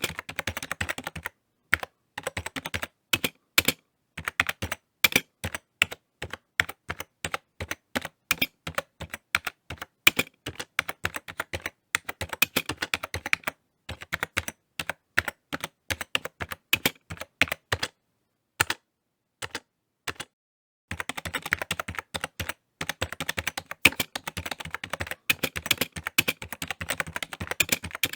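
Typing on a computer keyboard: rapid runs of key clicks broken by short pauses, with a longer pause of a couple of seconds past the middle and a faster, denser burst of typing near the end.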